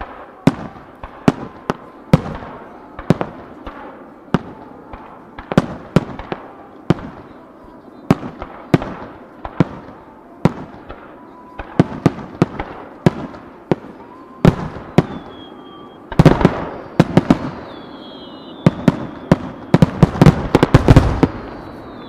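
Aerial firework shells bursting, a sharp bang about every second. About three-quarters of the way in they give way to a dense volley of loud bangs, with a thin high whistle over them.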